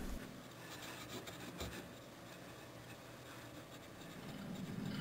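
Soft cloth rubbed by hand with chrome polish paste over a chrome motorcycle exhaust pipe, a faint scrubbing to lift rust off the chrome.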